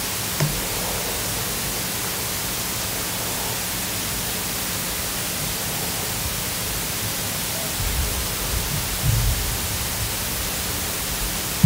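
Steady hiss of background noise, with a few low rumbles about eight to ten seconds in.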